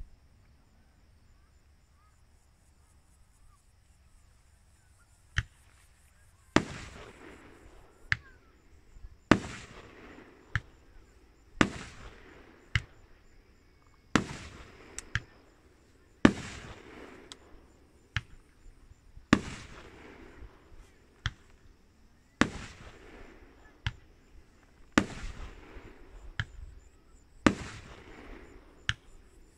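Aerial fireworks shells bursting in a regular series: after a few quiet seconds, sharp bangs about every two seconds, each trailing off in a rumbling echo, with smaller pops between them.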